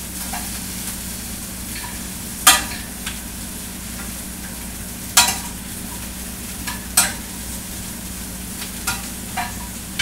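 Brussels sprouts sizzling steadily as they fry in butter and oil in a skillet, with a cooking utensil striking a pan three sharp times, about two and a half seconds apart, and a few lighter clinks of stirring.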